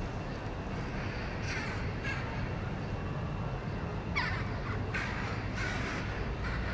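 Birds calling outdoors: about six short, harsh calls spread through the few seconds, one falling in pitch about four seconds in, over a steady low rumble.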